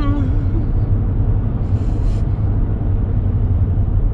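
Steady low rumble of engine and tyre noise inside the cabin of a moving car, with a brief hiss about two seconds in.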